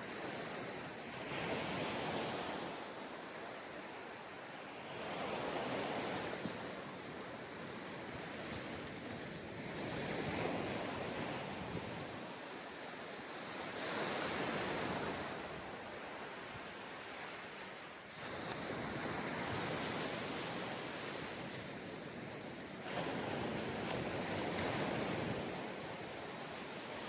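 Ocean surf breaking on a sandy beach: a steady wash of waves that swells and falls back about every four seconds.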